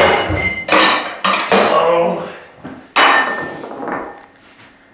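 Tableware clattering: about five sharp knocks in the first three seconds, several with a brief metallic ringing, then it dies away.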